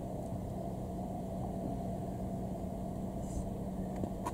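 Steady low background rumble with a faint, constant hum, and a single click near the end.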